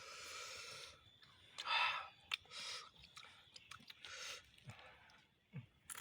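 A person chewing raw vegetables and fruit, crunching in several short bursts.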